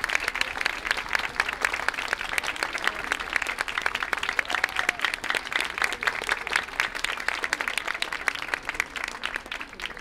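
Audience applauding, dense steady clapping that thins out a little toward the end.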